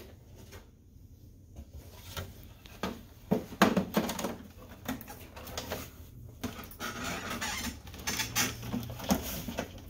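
Plastic side cover of an HP Color LaserJet M452 laser printer being handled and fitted against the printer's chassis: scattered plastic clicks, knocks and scraping. It is quieter for the first couple of seconds, with the loudest knock about three and a half seconds in.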